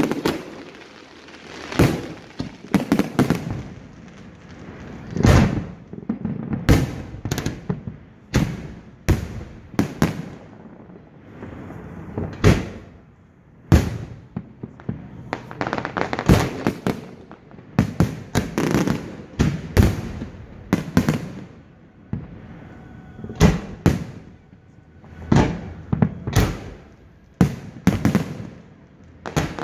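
Aerial fireworks display: shells bursting in rapid, irregular succession, dozens of sharp bangs, each trailing off in an echo.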